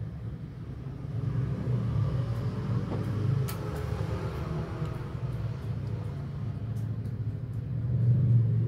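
A steady low background rumble that grows louder near the end, with a sharp click about three and a half seconds in and a few faint ticks later.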